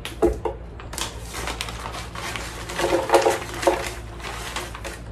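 Frozen pitaya (dragon fruit) chunks shaken out of a plastic bag and rattling into the plastic jar of a Vitamix blender: a run of quick clattering knocks, loudest about three seconds in.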